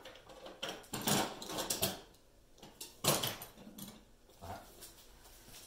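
Metal hand tools clinking and knocking on a workbench while a screwdriver is swapped for a smaller one: a run of quick clicks and knocks, then a sharper knock about three seconds in.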